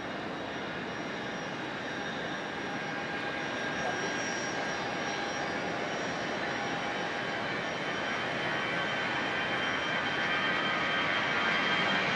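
Airbus A320's twin turbofan jet engines at takeoff power during the takeoff roll: a rushing noise with a steady high whine on top, growing steadily louder as the airliner approaches.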